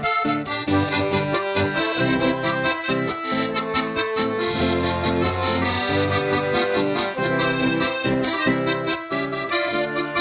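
Accordion playing the rhythmic instrumental introduction to a gaúcho folk song, chords over a bass line.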